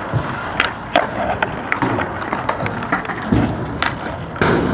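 Skateboard wheels rolling over rough concrete, with several sharp clacks of boards striking the ground.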